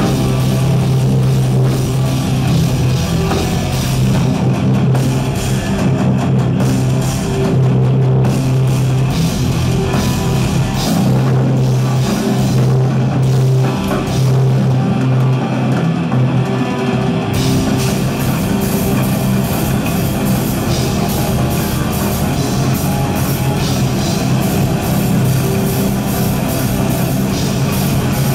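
Live metal band playing loudly: distorted electric guitars over a drum kit. The sound thins out in the middle and comes back full about 17 seconds in.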